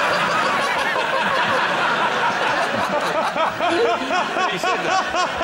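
Studio audience laughing, many voices at once and steadily loud, with single laughs standing out more clearly in the second half.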